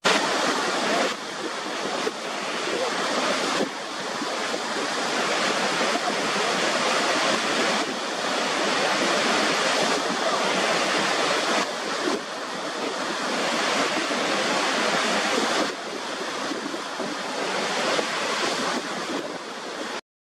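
Steady rush of water pouring over the brink of Niagara Falls: a dense, even hiss with little deep rumble. Its level steps abruptly up or down every few seconds, and it cuts off suddenly near the end.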